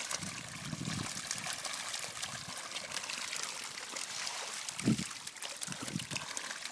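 Feeding catfish thrashing and splashing at the surface of a crowded pond: a steady crackling slosh of many small splashes as they take scattered feed.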